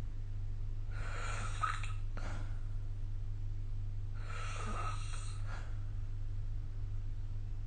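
A sleeping person snoring: two airy, breath-length snores about three seconds apart, each lasting about a second, over a steady low hum.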